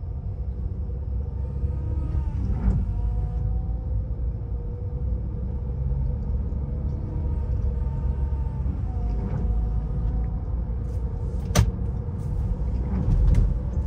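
Chevrolet Cruze transmission whining over the car's low rumble, its pitch drifting up and down, with a few sharp clicks near the end. The whine sounds like a cutting machine and comes from a broken plastic oil-catcher piece inside the gearbox that no longer guides oil up to the chain, so the chain runs dry.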